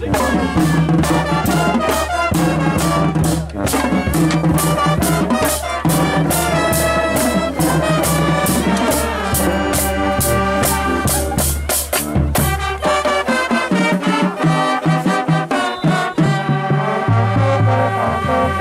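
High school marching band playing in the stands: brass and clarinets over a drumline keeping a steady beat. The deepest bass notes drop out about two-thirds of the way through while the drums and upper instruments carry on.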